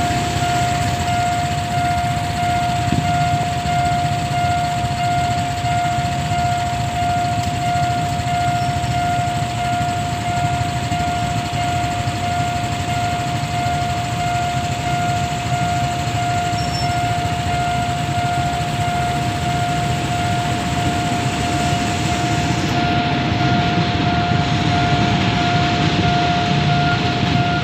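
Railway level-crossing warning alarm sounding continuously: a steady electronic tone with a pulsing beep above it, over the low hum of idling traffic. A train passes over the crossing near the end.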